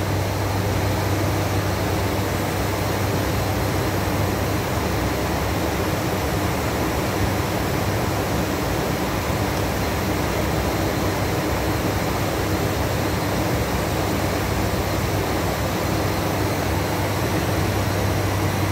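Steady flight-deck noise of an ATR 72-500 in cruise: the constant drone of its turboprop engines and propellers with airflow hiss, heard from inside the cockpit, with a low steady hum throughout.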